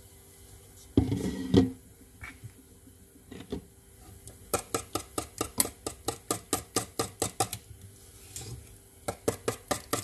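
Wire whisk beating a liquid egg-and-milk custard mix in a stainless steel bowl, its wires clicking against the bowl about six times a second in two spells with a short pause between. A brief louder clatter comes about a second in.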